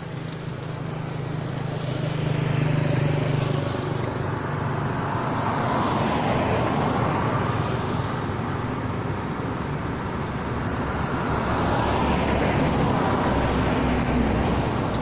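Road traffic: a few cars passing on a paved road one after another, each swelling up and fading away.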